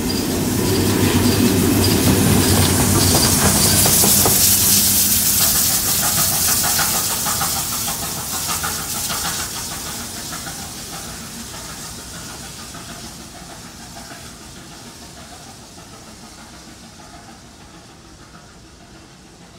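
Steam locomotive 3801, a C38-class Pacific, passing close by: a low rumble of wheels on the rails under a loud hiss of steam. It then fades steadily away as the locomotive draws off.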